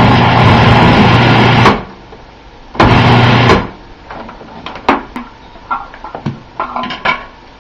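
Small electric food processor chopping strands of cooked pork skin in two pulses, one of about two seconds and a shorter one under a second. After them come scattered light knocks and scrapes as a wooden utensil empties the processor bowl.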